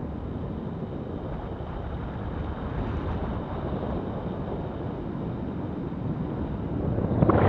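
Airflow of paragliding flight buffeting the camera's microphone: a steady low rush of wind noise that swells louder just before the end.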